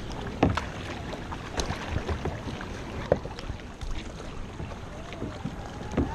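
Kayak paddle strokes and water splashing and lapping against a plastic sit-on-top kayak, over a steady low wind rumble on the microphone. Sharp splashes stand out about half a second in and again about three seconds in.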